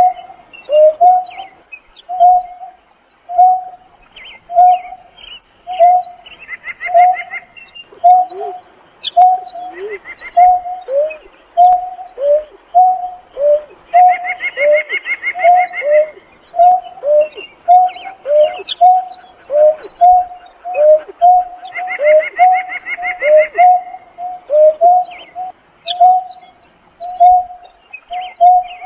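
Greater painted-snipe calling: a long, regular series of low hoots, about one and a half a second, some sliding down in pitch. A higher, rapid trill breaks in several times in bouts of one to two seconds.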